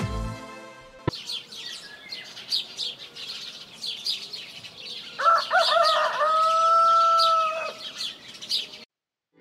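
Small birds chirping busily, and a rooster crowing once from about five seconds in, a few broken notes and then one long held note that drops off at the end. A morning-ambience sound effect.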